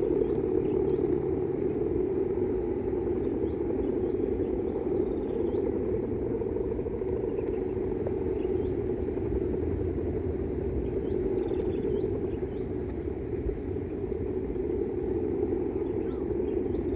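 Strong wind buffeting the microphone under a steady droning hum, with small birds chirping now and then.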